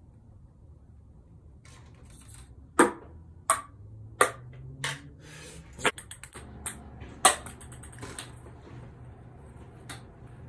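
Ping pong balls bouncing on a hard floor: a string of sharp, light taps, starting about three seconds in and running to about seven and a half seconds, with a few fainter taps near the end.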